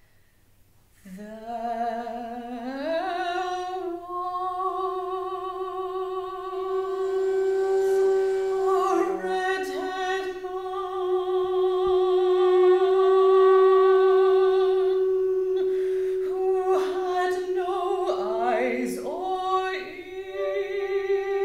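Contemporary chamber music for soprano, flute, clarinet and double bass: a rising slide into one long held note, then short sliding figures and a new held note near the end.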